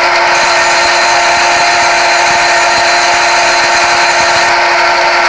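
Simulated CNC lathe sound from a turning simulator app: a steady, loud machine hum of several held tones over a hiss, the spindle running and the tool cutting metal during a G01 chamfer cut.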